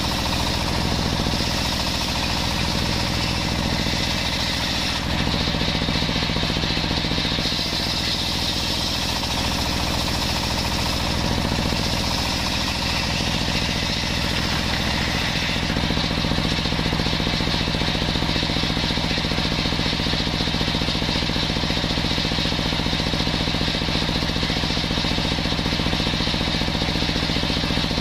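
Large circular table saw running steadily as planks of jackfruit wood are ripped on it, a loud rattling machine drone whose tone shifts several times as cuts start and finish.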